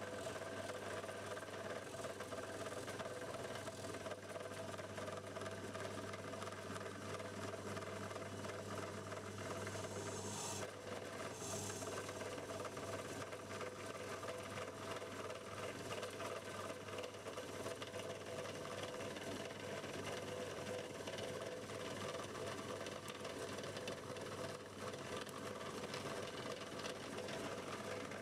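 Drill press motor running steadily while its bit drills into an oak handle block, with two brief hisses about ten and eleven seconds in.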